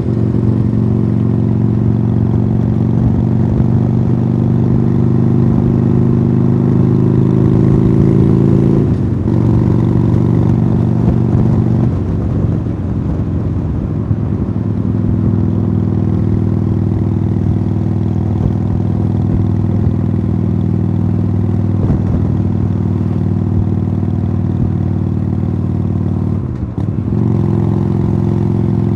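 Harley-Davidson Sportster Iron 883's air-cooled V-twin running through aftermarket Khrome Werks Tapered 3 exhausts while riding, its note steady, climbing a little, then briefly breaking about nine seconds in, again near twelve seconds, and once more near the end.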